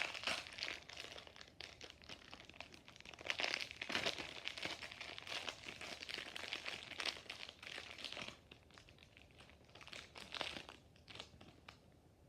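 Plastic toy packaging crinkling and rustling in irregular bursts as a Beyblade box is opened. The crinkling is busiest through the first eight seconds, then turns fainter with one last burst near the end.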